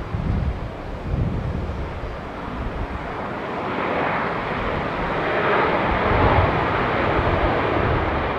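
Jet noise from the four CFM56 engines of an Airbus A340-300 rolling out on the runway just after touchdown; the noise swells about three and a half seconds in and stays loud. Gusts of wind rumble on the microphone throughout.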